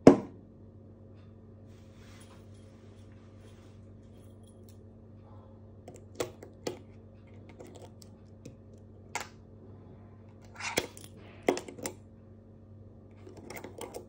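Small hard objects being handled on a tabletop: one sharp knock at the start, then scattered light clicks and taps, the busiest cluster a little over two-thirds of the way through, over a faint steady hum.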